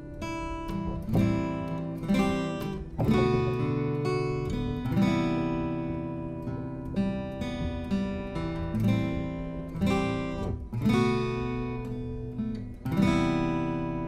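Background music: an acoustic guitar playing plucked and strummed chords, a new chord about every second.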